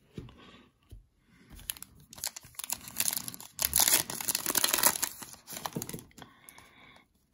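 Plastic-foil wrapper of a trading-card pack being torn open and crinkled, a stretch of crackling that is loudest in the middle.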